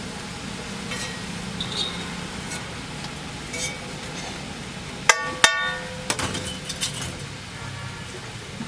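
Metal cooking utensils clinking, with two sharp ringing metal clangs about half a second apart a little past halfway, over a steady background hiss.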